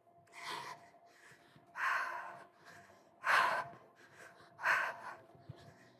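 A woman breathing hard from exertion, with four loud breaths spaced about a second and a half apart.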